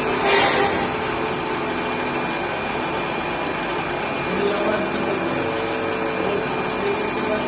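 RO purifier high-pressure booster pump motor running steadily, a dense whirring noise with a few steady tones in it, the noise of its damaged bearings.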